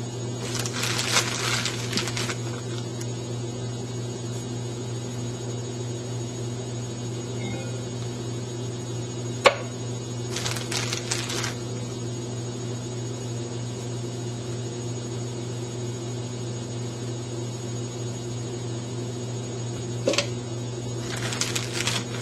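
A clear plastic bag of frozen bananas crinkling in three short bursts as it is handled, with two sharp knocks in between. A steady low hum runs underneath.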